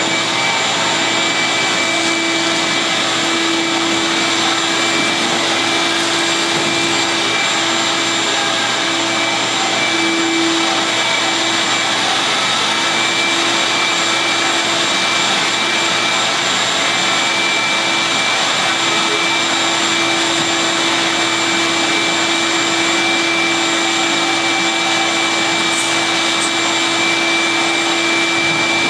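Vacuum cleaner running steadily with one unchanging motor whine, its hose and nozzle worked over the steel floor of a pickup truck bed.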